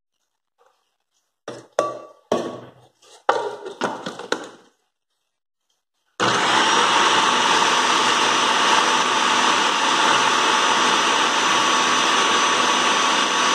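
A few clicks and knocks as the food processor's lid and pusher are fitted. Then, about six seconds in, the small electric food processor starts and runs steadily with a motor whine, mixing crushed cornstarch biscuits with melted margarine for a tart crust.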